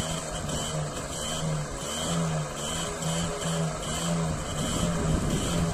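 Restored TVS 50 moped's small two-stroke single-cylinder engine running, its sound swelling and fading about twice a second.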